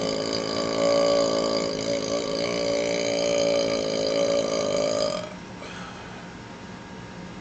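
A man's long, loud burp brought up by chugging carbonated Pepsi, held on one steady pitch with a brief waver in the middle. It ends about five seconds in, leaving faint background hiss.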